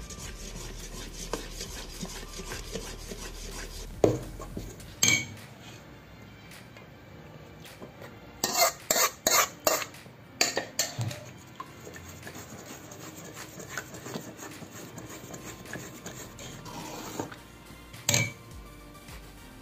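Metal ladle stirring thick Mysore pak mixture of gram flour, sugar syrup and ghee in a stainless steel pot, scraping and clinking against the pot's sides. The knocks come singly at first, in a quick cluster around the middle, and once more near the end.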